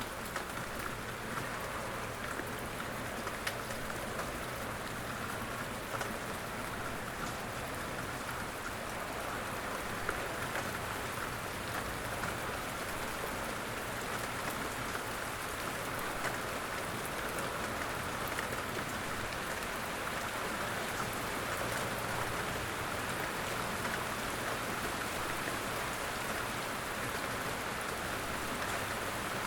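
Steady rain falling, an even hiss of rain with scattered individual drops ticking on a surface.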